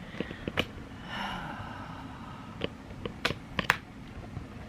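Light plastic clicks and handling as AirPods are fumbled one-handed into their charging case: a few small ticks in the first second and sharper clicks about three and a half seconds in.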